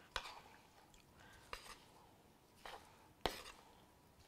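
A utensil clicking against a wooden salad bowl as chopped fruit is tossed together: a handful of separate clicks spread out, the loudest a little past three seconds in.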